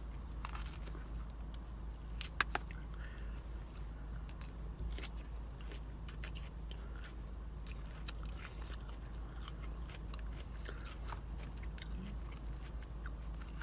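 Close-up chewing and crunching of a salad of greens, cucumbers, carrots and croutons, with scattered sharp clicks of a fork against a plastic salad container, one louder click about two and a half seconds in. A steady low hum lies underneath.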